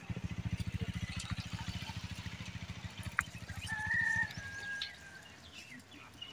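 Birds chirping, with one clear whistled call about four seconds in, over a low, fast, even pulsing throb that fades out shortly after.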